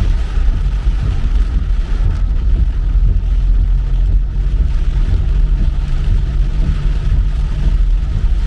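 Car driving, with a steady low rumble of engine and road noise and a hiss above it.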